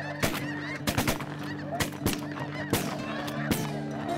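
A volley of shotgun blasts from several waterfowl hunters, about seven shots over four seconds. Behind them a large flock of snow geese honks constantly.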